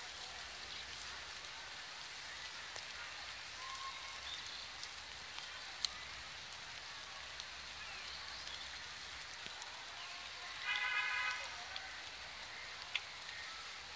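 Light rain hissing steadily, with a few sharp ticks of drops. About three-quarters of the way through, a vehicle horn sounds once, briefly, louder than the rain.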